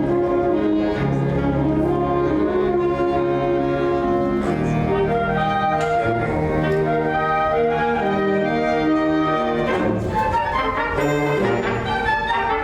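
A school orchestra playing, with bowed strings (violins and cellos) carrying sustained melodic lines; the texture shifts and grows busier about ten seconds in.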